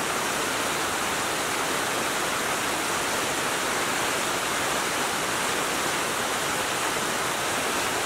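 Water rushing down a sloping concrete spillway and churning at its foot: a steady, even rush.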